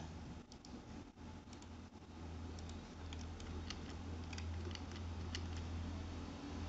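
Computer keyboard keys and mouse buttons clicking, a dozen or so scattered taps, over a steady low hum.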